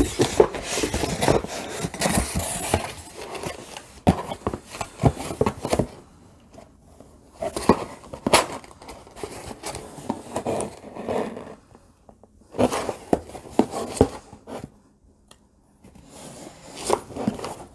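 A small box being opened and unpacked by hand: scraping, tearing and rustling with many clicks and knocks, in spells broken by short pauses.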